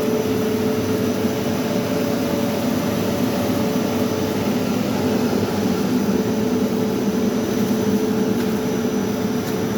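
Slitter-rewinder machine running steadily, a constant mechanical hum with a faint high whine.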